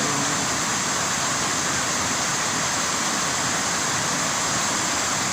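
Steady, unbroken rushing noise with no distinct events, brightest in the high range.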